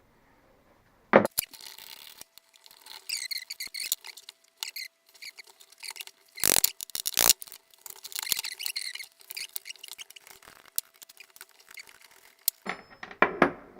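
Bolts being worked loose from a motorcycle seat frame with a hand tool, making squeaky metal-on-metal scraping with sharp knocks: one about a second in, two about six and seven seconds in, and a cluster near the end.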